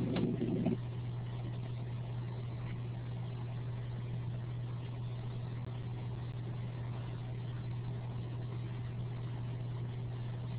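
Steady low electrical hum with faint hiss from an open microphone on a web-conference audio line; some extra noise cuts out just under a second in.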